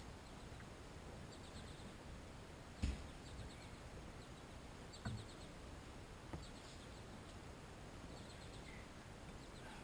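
Faint open-air background with small birds chirping in short repeated phrases. A few soft knocks sound, the loudest about three seconds in and two lighter ones a few seconds later.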